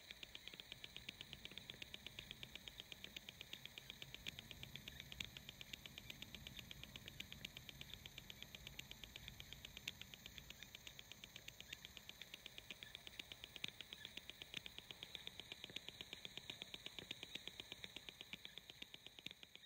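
Near silence: faint electrical hum with a fast, even ticking pulse.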